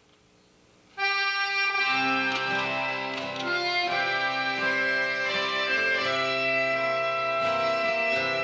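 Piano accordion starting an instrumental tune about a second in with long, sustained chords and melody, and lower bass notes coming in a second later. An acoustic guitar strums along underneath.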